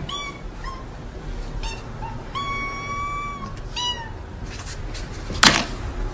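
Two kittens meowing repeatedly in high, thin voices, one call held for about a second, begging for food from a bowl held above them. Near the end a single sharp clack as the food bowl is set down on the floor.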